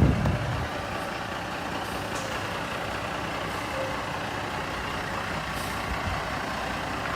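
Truck's diesel engine running steadily, with a couple of brief faint hisses of air. A louder sound fades out in the first half second.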